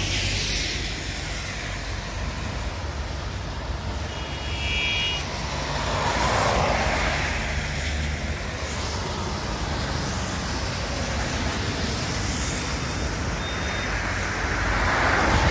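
Steady road and tyre noise of a car driving on a highway, swelling about six seconds in and again near the end. A brief high horn toot sounds about four seconds in.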